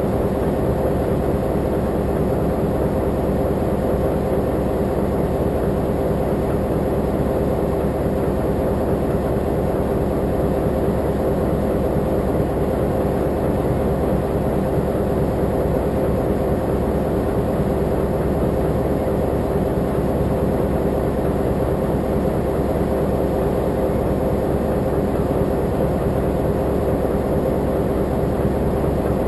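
Diesel locomotive engine running steadily at idle, a constant low hum with no change in pitch or level.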